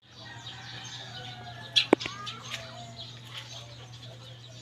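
Birds chirping over a steady low hum, with two sharp knocks close together about two seconds in.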